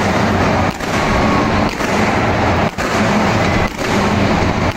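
Stadium rooftop fireworks firing: spark fountains and shells make a dense, continuous roar and crackle that dips briefly about once a second.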